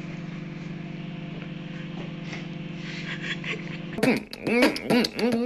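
Microwave oven running: a steady low electrical hum. About four seconds in, a voice cuts in with louder swooping vocal noises.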